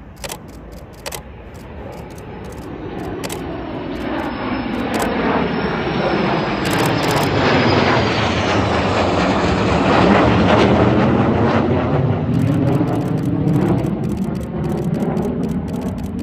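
Jet engine noise from a pair of fighter jets flying over. It swells to a peak about ten seconds in and then eases away, with a sweeping, phasing tone as the jets pass.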